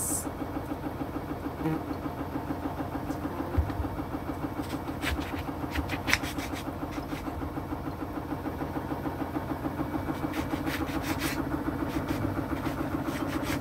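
A washing machine runs with a steady, rhythmic hum. A few sharp taps of a knife cutting through an orange against a wooden cutting board come about five to six seconds in and again around ten to eleven seconds.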